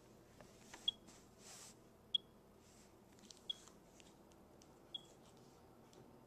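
Smoke detector with its 9-volt battery removed, still giving short high-pitched chirps, four in all, each fainter and a little further apart than the last.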